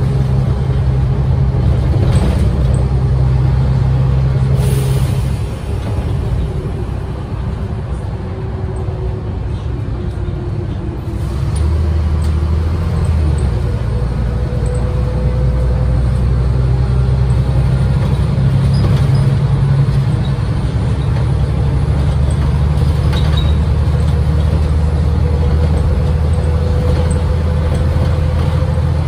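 Renault PR100.3 city bus under way, heard from inside: its 9.8-litre six-cylinder turbodiesel and ZF five-speed automatic running, with faint rising whines as it pulls. About five seconds in there is a short hiss and the engine eases off, then it pulls harder again from about eleven seconds.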